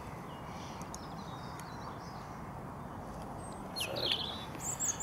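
Outdoor ambience: a steady background hiss with small birds chirping, faintly at first and then a quick run of brighter, gliding chirps near the end.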